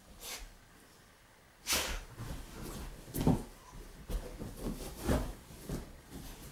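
A Staffordshire bull terrier scrabbling about in sofa cushions: a run of irregular rustles and bumps of fabric, the sharpest about two, three and five seconds in.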